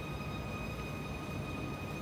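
Hushed concert-hall ambience while the orchestra waits to begin: a quiet, steady low rumble with a faint steady high whine.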